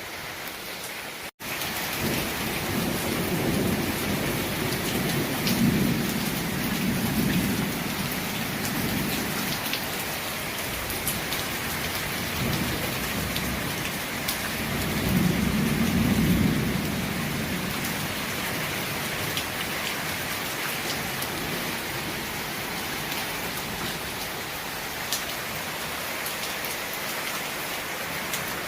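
Heavy rain falling steadily in a thunderstorm, with two long rolls of thunder rumbling low, the first from about two seconds in and the second around the middle.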